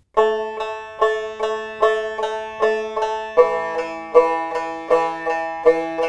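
Rubob, a long-necked fretted lute with a round skin-covered body, picked in a steady down-and-up picking exercise: a quick, even run of plucked notes with a stronger accent about every 0.4 s. A little past halfway the notes shift to a new, lower pattern.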